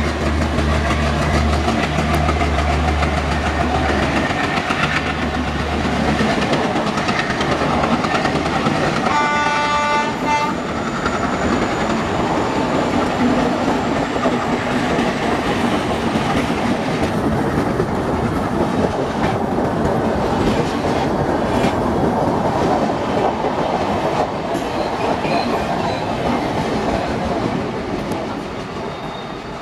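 Twin WDM3D ALCO diesel locomotives passing close under power, their engines chugging with a deep steady note, then a single train horn blast of about a second and a half. The express coaches roll by with wheel clatter, fading near the end.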